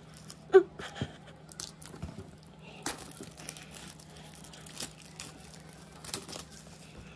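Pull-tab tear strips being ripped off an iPad Air box and its clear plastic wrap crinkling: irregular tearing and crackling, with a short sharp squeak about half a second in. A faint steady hum runs underneath.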